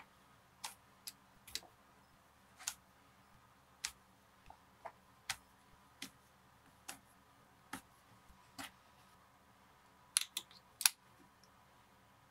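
Hand stitching a leather leash: thread drawn through the leather and pulled tight, a short light rasp about once a second, with three sharper clicks close together near the end.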